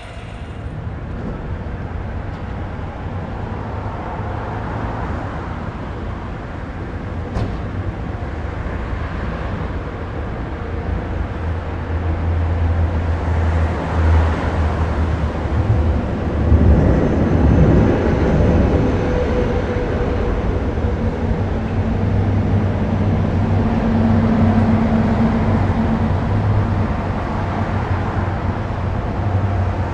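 Motor vehicle engines running: a steady low rumble with a noisy wash above it, growing louder past the middle.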